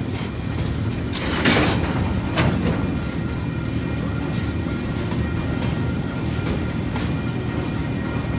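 Freight train's container wagons rolling past with a steady low rumble of wheels on rail. Sharp wheel clunks come over the rail joints, loudest about one and a half seconds in, again just before two and a half seconds, and lighter near the end.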